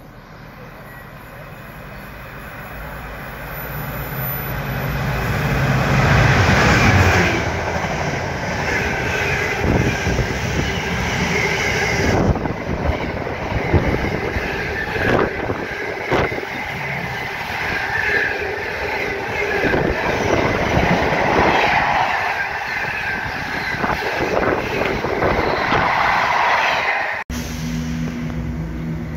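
Freight train passing at speed: the locomotive's engine swells in as it nears and peaks as it goes by, then container wagons rattle past with wheels clattering over the rail joints. Near the end a sudden cut brings in the low, steady drone of another diesel freight locomotive approaching.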